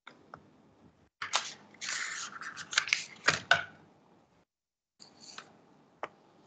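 A cluster of sharp clicks and rustling, handling noise close to the microphone, starting about a second in and lasting about two and a half seconds, followed by a faint rustle and a single click near the end.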